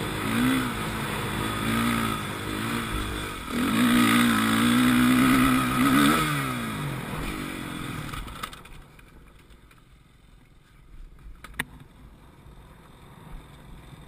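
Dirt bike engine revving, its pitch rising and falling several times as the rider rides along the motocross track. About eight seconds in it drops away to a much quieter low running as the bike slows, with one sharp click a few seconds later.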